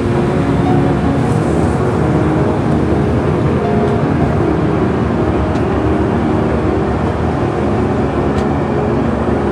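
Steady in-flight cabin noise of an airliner heard inside its lavatory: a constant loud rumbling hum, with a faint tick or two.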